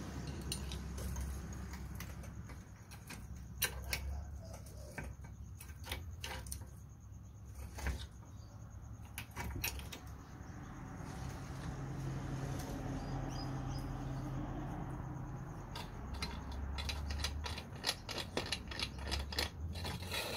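Scattered light metallic clicks and knocks from a trolley jack being worked under a car's rear lower suspension arm to compress a new coil spring.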